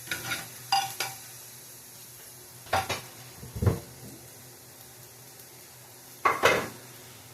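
Kitchen utensils and a frying pan clattering: a few sharp knocks early, two more around the middle and a loud clatter near the end. Under them, chopped onion sizzles faintly and steadily in butter.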